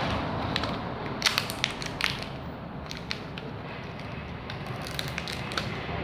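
Adhesive membrane keypad being peeled off a microwave's plastic control panel: irregular sharp crackles and clicks of plastic film and glue letting go, thickest in the first couple of seconds.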